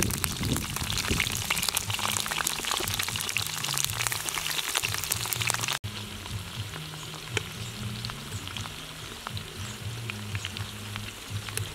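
Hot oil sizzling and crackling in a wok as lemongrass stalks, sliced garlic and chillies fry in it. It is a dense, steady crackle, louder at first, and after a short break about six seconds in it goes on more quietly.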